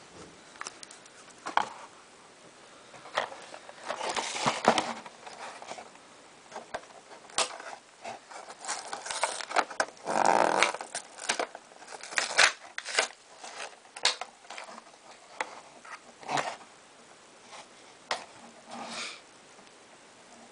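Hands handling plastic model car kit parts and their cardboard box: irregular clicks, taps and rustling, with louder rustles about four and ten seconds in.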